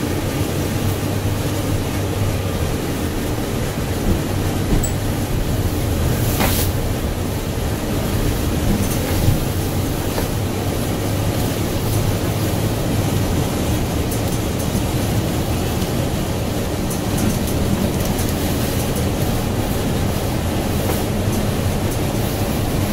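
Inside the cabin of a NABI 60-BRT articulated bus on the move: steady hum of its Cummins Westport ISL G natural-gas engine under road and tyre noise. A brief sharp click about six and a half seconds in.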